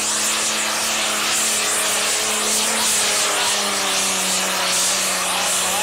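Diesel pulling tractor engine running flat out under heavy load as it drags the weight-transfer sled, a loud, steady engine note with a harsh hiss over it.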